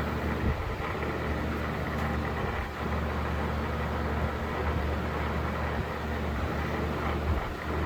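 12-inch Patton CA-1285 box fan running on high speed: a steady rush of air over a low motor hum.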